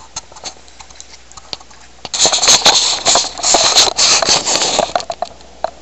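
Handling noise: a few faint clicks, then about two seconds in a loud rustling and clattering that goes on for around three seconds, full of small sharp clicks, before dying away.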